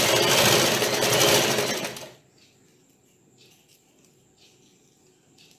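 Electric sewing machine stitching fabric at a fast, steady run, then stopping about two seconds in; after that only faint rustles as the cloth is handled.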